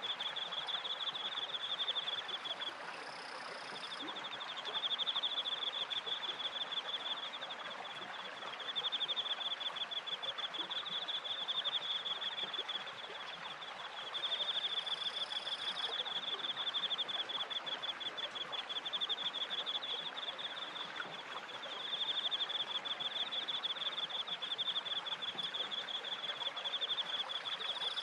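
Crickets trilling in pulsing phrases of a few seconds each, one after another, over a steady rush of running water from the stream and waterwheel.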